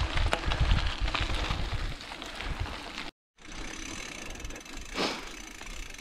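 A fully rigid single-speed bike rattling and clattering over rough trail, with low wind noise on the microphone. The sound cuts out for a moment about halfway through, then comes back quieter with a short rush about five seconds in.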